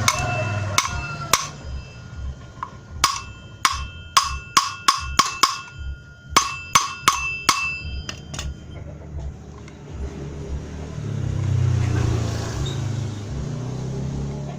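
A metal part struck repeatedly, about sixteen sharp clinks in uneven clusters over the first eight seconds or so, each ringing at the same pitch. After that comes a low hum that swells and fades near the end.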